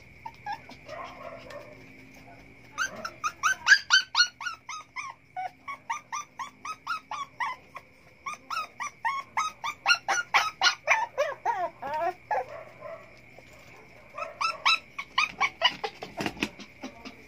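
Puppy crying: rapid series of short, high-pitched yelps and whines, several a second, in three bouts with brief pauses between them. The crying is typical of a puppy that wants to be let out of its pen.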